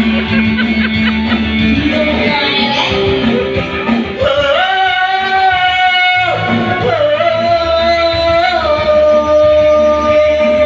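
Live singing of a Malay-language ballad over a karaoke-style backing track with guitar, with long held sung notes through the middle.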